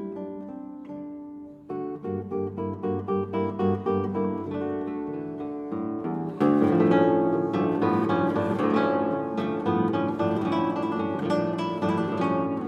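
Background music of acoustic guitar, a run of plucked notes that turns fuller and louder about six seconds in.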